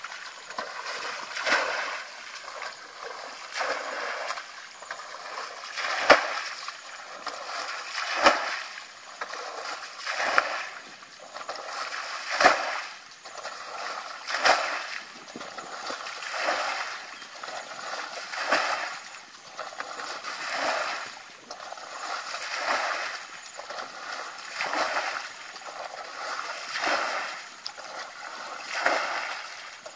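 A plastic bucket scooping and flinging muddy water out of a shallow pool, splashing about every two seconds, sometimes with a sharp slap as the water lands.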